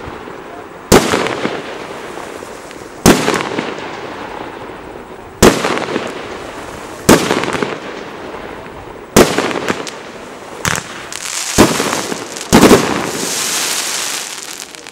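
A 1.2-inch 'Galaktika' fireworks battery firing shots: about eight sharp bangs roughly two seconds apart, each trailing off in crackle, with two bangs in quick succession near the end followed by a longer hissing crackle that fades out.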